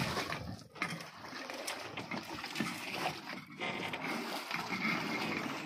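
Sea water sloshing and splashing against the side of a moored wooden fishing boat, an uneven rushing wash.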